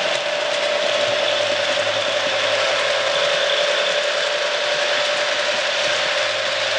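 HO-scale model passenger train rolling past close by, drawn by a Proto 2000 E7A diesel. The wheels and gearing give a steady mechanical whirring and rattling on the track, with a steady hum underneath.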